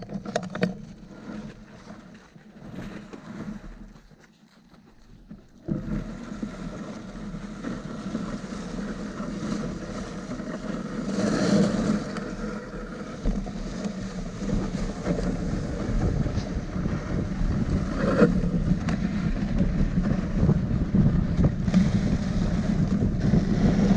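Sled runners sliding over snow, a steady scraping noise that starts abruptly a few seconds in and slowly grows louder, with wind buffeting the microphone.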